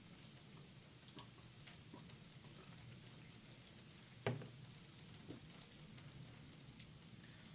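Steady rain hiss with scattered drops ticking, and one sharp knock about four seconds in followed by a few fainter ticks.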